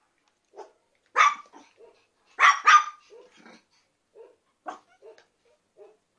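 Very young puppies whimpering in short faint squeaks, with three louder, sharper yaps, one about a second in and two in quick succession about two and a half seconds in.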